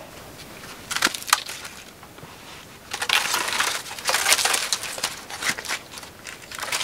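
Crunching and clicking of charred wood pieces being handled and set upright in a stone fire pit, with a couple of sharp clicks about a second in and a dense run of crunching from about three seconds in that thins out near the end.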